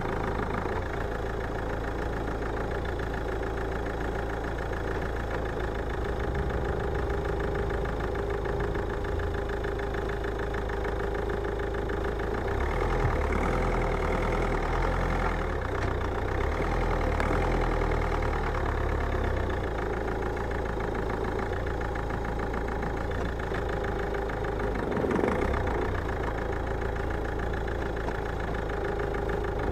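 Car engine running steadily at a low, even pace, with one short thud about 25 seconds in.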